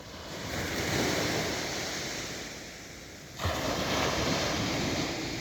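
Sea water and wind noise with wind on the microphone, without a steady tone. It swells about a second in, dies back, then rises suddenly about three and a half seconds in and stays up.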